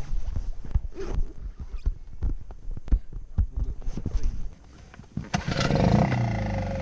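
Irregular knocks and thumps with a low rumble, then a little over five seconds in an engine starts and runs steadily.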